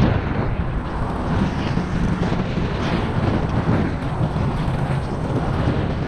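Wind buffeting the microphone while riding a Xiaomi Mijia Pro electric scooter along an asphalt path, with a steady low rumble from the tyres on the road surface.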